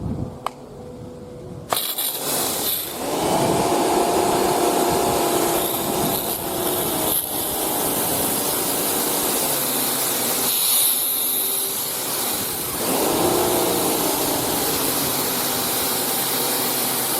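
Kärcher K3 electric pressure washer starting up about two seconds in, then running steadily: the hiss of its high-pressure water jet blasting the concrete driveway, with the motor and pump whine rising and fading as it works.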